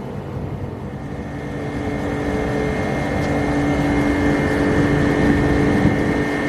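Air-conditioner outdoor condensing unit starting up: the compressor and condenser fan run with a steady hum and rush of air that builds over the first couple of seconds, then holds steady.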